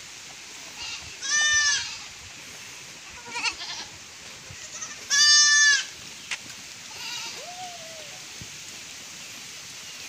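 Goats bleating: two loud, high-pitched bleats, about a second in and about five seconds in, each lasting about half a second, with fainter calls between them and a single sharp click just after the second bleat.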